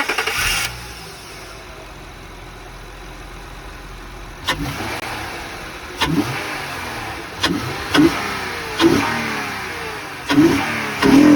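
A 2004–08 Acura TL's 3.2-litre V6 breathing through a homemade PVC cold air intake, running loud. It idles, then from about four seconds in it is blipped on the throttle some six times, each rev jumping up and falling back.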